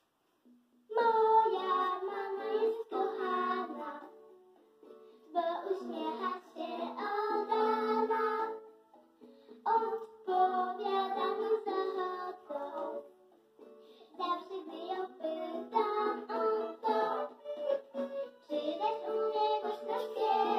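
A young boy and his older sister singing a children's song together, in sung phrases of a few seconds with short pauses between them.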